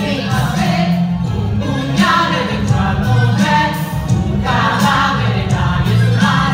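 Stage musical number: a group of singers over a backing track with a heavy, steady beat.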